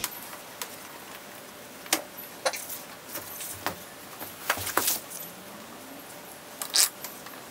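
Hands working a plastic syringe and an oil filter on a test rig over a metal tray: scattered light clicks and knocks, the loudest near the end.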